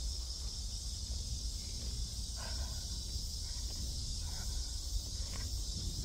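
A steady, high-pitched chorus of insects in summer woodland, with a low rumble on the microphone underneath and a few faint, brief sounds near the middle.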